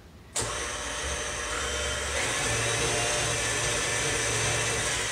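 Electric stand mixer switched on about half a second in and running steadily, beating vanilla into the creamed cake mixture.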